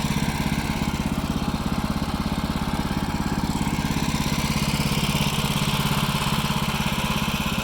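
Engine of a Wood-Mizer LT15START portable band sawmill running steadily with an even pulsing beat.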